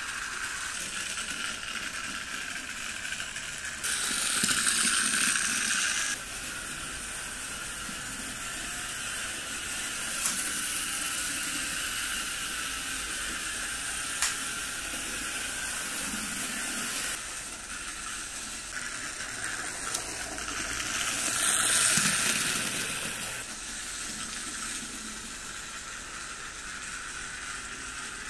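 Model train locomotive running on Trix three-rail metal track: the small electric motor whirring and the wheels rattling over rail joints and turnouts, with a few sharp clicks. It grows louder for a couple of seconds twice, about four seconds in and again a little past the middle.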